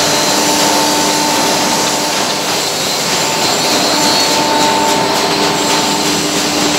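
Loud, steady running noise of factory machinery in a CNC router shop: a constant rushing like a large blower, with a few steady tones of running motors that fade out and return partway through.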